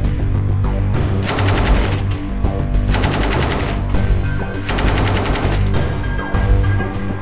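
SAR 762 MT belt-fed 7.62×51 mm NATO machine gun firing three short bursts of automatic fire, each about a second long, over background music.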